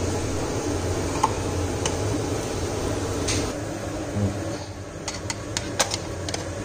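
A steady low hum with the frying of sliced onions in oil in a non-stick pan. It drops off about four and a half seconds in, and then come a few light clicks of a spoon against a pot as ghee is put in.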